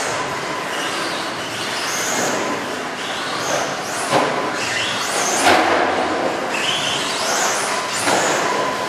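Electric RC off-road car's motor whining, rising in pitch again and again as it accelerates out of the corners, with a couple of sharp thumps about four and five and a half seconds in.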